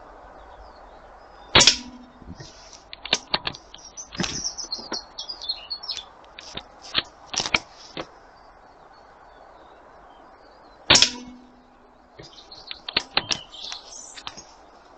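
Two air rifle shots, one about a second and a half in and one about nine seconds later, each a sharp crack with a brief low ring after it. Between them come a run of small clicks and knocks, with birds chirping in the background.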